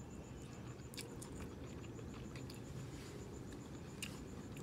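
Faint chewing of a mouthful of food with the mouth closed, with a few small wet mouth clicks, strongest about a second in and again near the end, over a steady low background noise.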